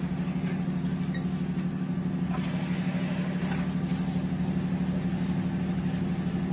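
A boat's engine running with a steady low hum, with a few faint ticks over it.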